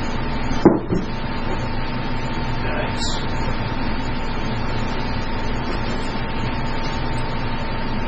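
A steady background hum with a constant tone, broken by one knock about a second in and a short scrape about three seconds in: handling noise as the tool and its packaging are moved.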